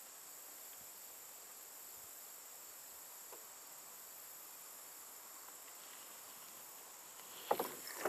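Faint, steady high-pitched chorus of insects. Near the end, a brief cluster of sharp handling knocks.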